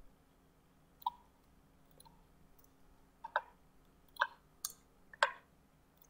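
A few faint, scattered clicks from a computer mouse and keyboard, about half a dozen at irregular intervals, as code is edited.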